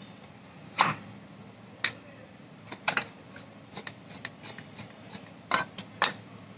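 Metal parts of a tractor starter motor clicking and knocking together as the armature and yoke housing are handled and fitted by hand: a dozen or so sharp knocks of varying strength, the loudest about a second in, with lighter ticks in the middle.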